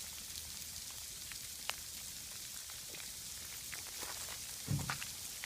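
Icy precipitation falling in an ice storm: a steady fine patter with scattered sharp ticks, and a couple of dull low thumps near the end.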